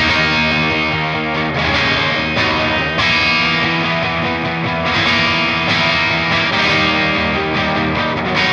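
Heavily distorted electric guitar played through a Diezel VH4 tube amp head, ringing out sustained chords that change every second or two, in a full band mix.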